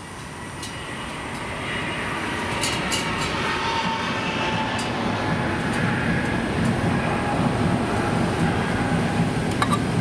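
A passing train: a heavy rumble builds over the first few seconds and then holds steady, with a faint wavering whine above it.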